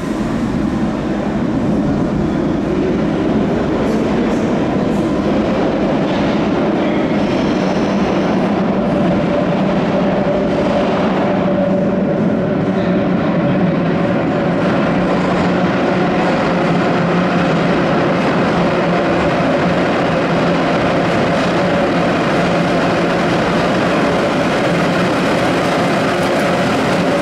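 London Underground battery locomotives approaching through the tube tunnel and running through the platform: a loud, steady rumble of wheels on rail with a steady hum over it.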